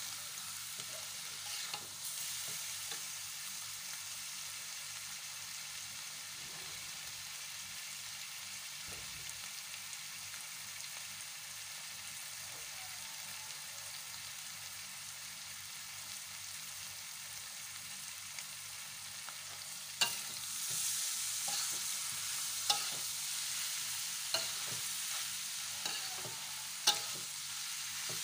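Bitter melon stir-fry sizzling in an aluminium wok while a metal spatula stirs and scrapes through it. About two-thirds of the way in the sizzle gets louder, and the spatula knocks sharply against the wok every second or two.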